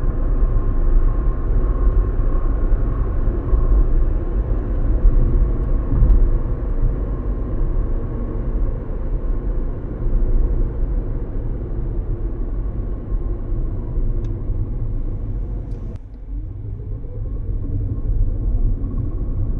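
Steady low rumble of a car in motion, with road and wind noise, dipping briefly near the end.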